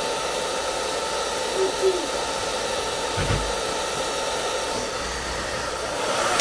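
Hair dryer running steadily on its coldest, lowest setting: a continuous rushing hiss with a faint steady whine. It shuts off at the very end.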